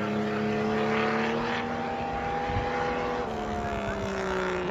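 A 4x4's engine idling steadily, its pitch edging up about a second in and settling back a little after three seconds.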